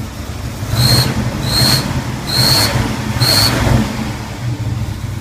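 1981 Pontiac Turbo Trans Am's turbocharged 301 V8 running rough on a cold start, with four short high squeals about a second apart, each coming with a brief rise in engine sound. The owner puts the squeaking down to the air management valve.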